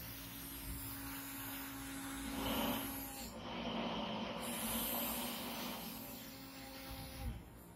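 Small brushed DC motor spinning a green plastic propeller, giving a steady whirring hum with an airy hiss that swells in the middle; the sound drops away shortly before the end.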